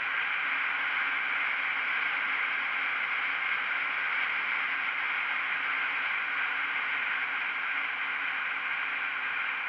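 Steady rushing wind and road noise from a KTM Duke 125 motorcycle cruising at road speed, picked up by an action camera mounted outside the bike's screen.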